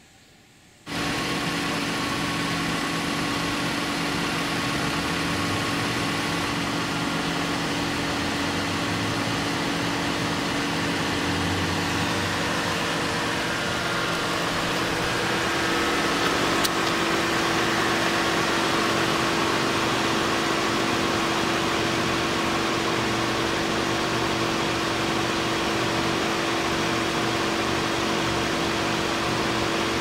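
Toyota RAV4's engine idling steadily, starting suddenly about a second in.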